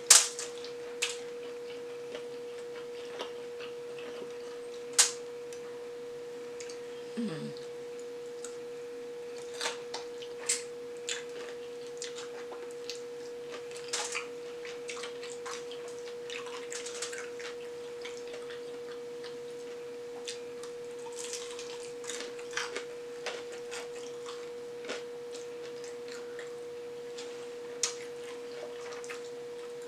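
Close-miked eating of crispy fried chicken: scattered crunches, wet chewing clicks and mouth smacks as the meat is pulled off and eaten, the loudest just at the start and about five seconds in. A steady electronic tone sits constantly underneath.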